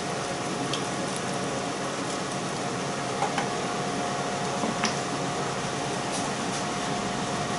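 A spoon stirring a bean and sausage stew in a slow cooker, with a few light knocks against the pot, over a steady hiss and faint hum.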